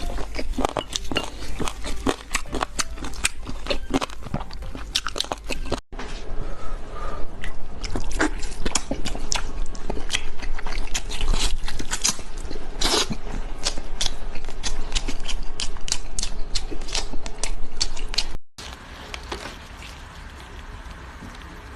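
Close-miked eating: crunchy biting and chewing with many sharp crackles. It stops abruptly twice, and the last few seconds are quieter.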